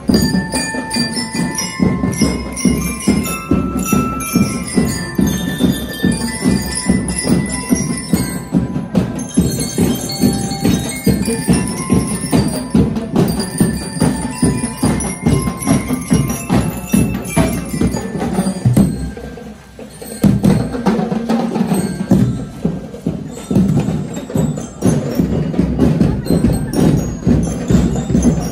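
Marching school drum and lyre band: bell lyres ring out a melody over a steady drum beat. The playing breaks off briefly about two-thirds of the way through, then starts again.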